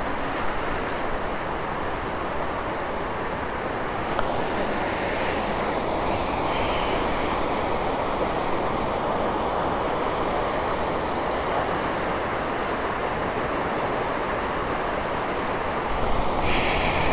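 Rain-swollen, muddy river rushing steadily over stones, in spate after days of continuous rain.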